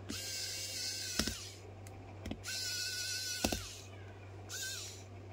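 Small electric screwdriver driving screws back into a phone. The motor whines in three short spurts, and the first two end in a sharp click.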